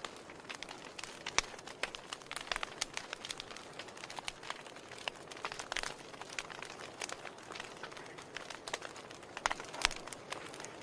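Wood fire crackling in a fireplace: irregular sharp pops and snaps over a soft steady hiss, with louder pops about a second and a half in and near the end.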